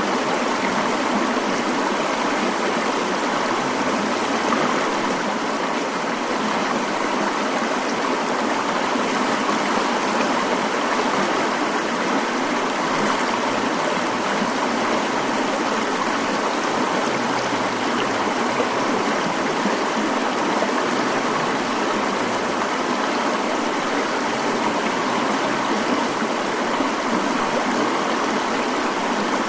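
Mountain stream running, a steady, unbroken rush of water.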